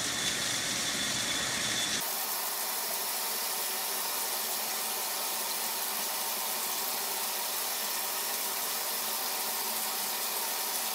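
Water running steadily from a bathtub spout, a constant rushing hiss. About two seconds in, the low rumble under it drops away abruptly.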